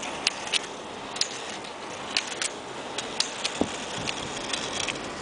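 Rollerskis rolling on an asphalt street: a steady rolling noise with irregular sharp clicks of ski-pole tips and gear on the pavement, one heavier click about three and a half seconds in.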